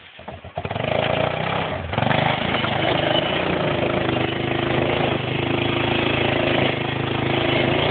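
An engine starts with a ragged first half-second, then runs steadily and loudly close by, stepping up slightly in level about two seconds in.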